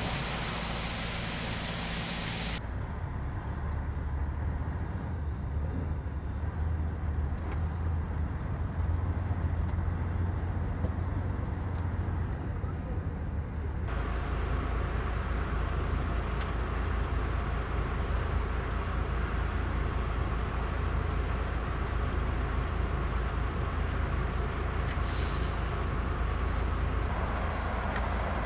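Low, steady rumble of a truck's diesel engine heard from inside the cab. About halfway through comes a row of short high beeps, and near the end a brief hiss.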